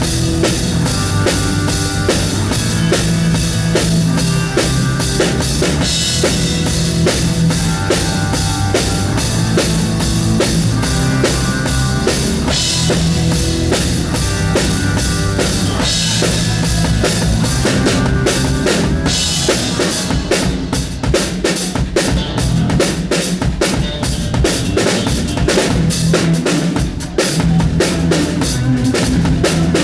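Drum kit played live in a steady groove, bass drum and snare with cymbals, over band music holding sustained notes. About eighteen seconds in the drumming gets busier, with faster, denser strokes.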